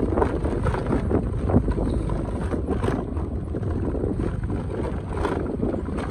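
Motorcycle riding over a rough gravel track, with wind rushing over the microphone and a steady low rumble of engine and road, plus a few faint knocks from bumps.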